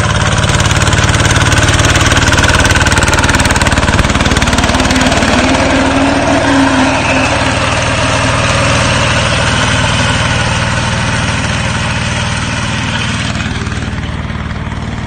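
Thai-built 'Singto Thong' (Golden Lion) tractor's engine running steadily under load in first gear while its slasher mower cuts through thick, tall grass. The sound eases a little near the end.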